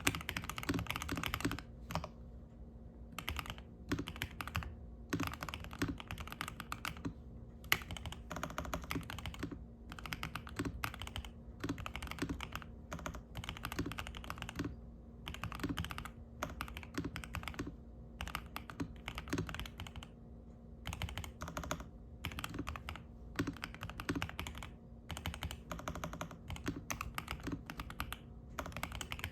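Typing on a Zuoya GMK67 mechanical keyboard with stock DK Roastery Iced Latte switches, ABS keycaps, a polycarbonate plate and a foam-filled, tape-modded plastic case, on a desk mat. A fast, continuous stream of keystrokes slows after about two seconds into short runs of key clacks separated by brief pauses.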